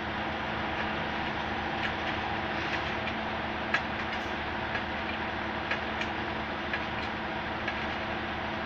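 Railway track-repair machinery running with a steady engine drone, with sharp metallic clicks about once a second from about two seconds in.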